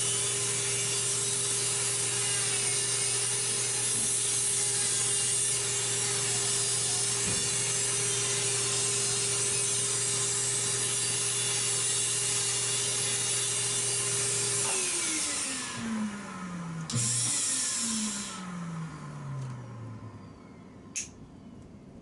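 Electric nail drill running at a steady speed, grinding down a toenail with a dense, rasping hiss. About 15 seconds in it is switched off and its pitch falls as it spins down. It picks up briefly and spins down a second time.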